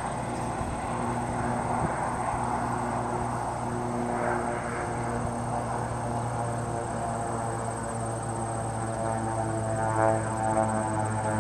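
Crop-spraying airplane in flight, its propeller engine droning at a steady low pitch, growing louder and fuller near the end.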